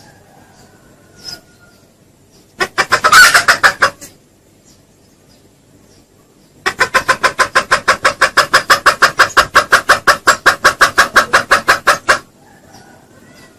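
Junglefowl calling: one loud call of just over a second, then after a pause a rapid, even run of clucks, about seven a second, for some five seconds.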